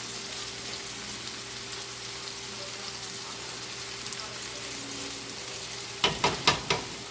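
Diced carrots, celery, onion and garlic sizzling steadily in hot oil in a pan on high heat. About six seconds in there is a quick run of sharp knocks.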